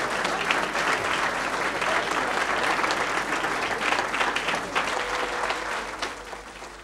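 Audience applauding: a dense patter of many hands clapping that thins out and dies down near the end.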